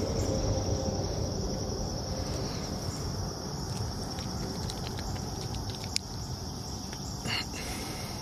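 Steady chorus of insects, an even high-pitched drone, over a low steady rumble, with a few faint ticks and a short brighter sound about seven seconds in.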